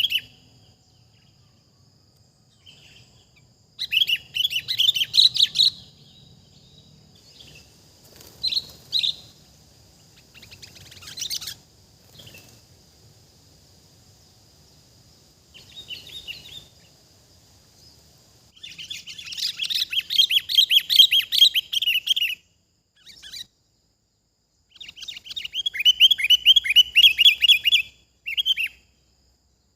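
Sooty-headed bulbuls (kutilang) calling in repeated bouts of rapid, bubbly chattering notes, with pauses of a few seconds between bouts; the longest bouts come past the middle and near the end. A faint steady high whine runs beneath the first two-thirds.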